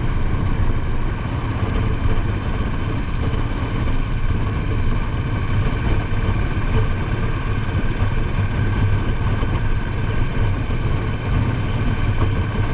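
Royal Enfield Bullet 500's single-cylinder engine running steadily as the motorcycle cruises along the highway, with wind rushing past the bike.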